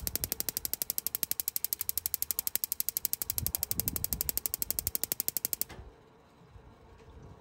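Camplux tankless water heater's electronic igniter sparking in a fast, even train of clicks, about a dozen a second, that stops abruptly near the end. The burner does not catch: the gas never lights.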